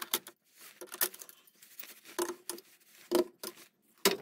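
Steel combination spanners clinking as they are hung one by one on metal hooks of a wall rack: a series of short, sharp clinks, roughly one a second.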